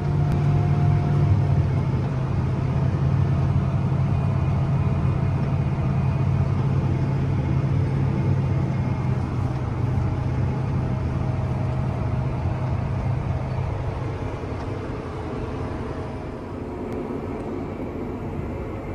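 Combine harvester running with a steady low engine drone that eases off somewhat after about fourteen seconds.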